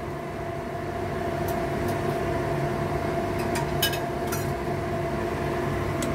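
Steady kitchen hum from a stainless stockpot of water boiling on a gas burner, with a low rumble and a constant droning tone. A few light metal clinks come around the middle.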